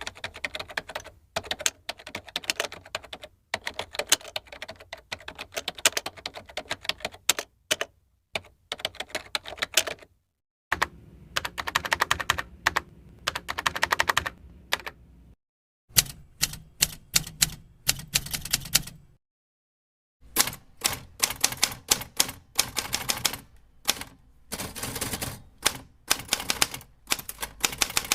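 Typing sound effects: fast runs of clattering key clicks, in several separate takes broken by short silences about 10, 15 and 19 seconds in.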